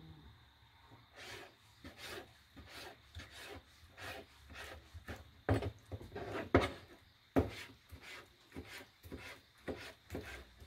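Kitchen knife chopping konnyaku into small pieces on a plastic cutting board: a string of irregular knocks of the blade on the board, about one or two a second, a few of them louder.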